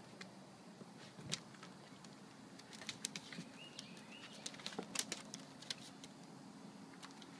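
Dog and cat play-wrestling on a wooden deck: scattered taps, clicks and scuffs of claws and paws on the deck boards. A short, high chirping call is heard a little over three seconds in.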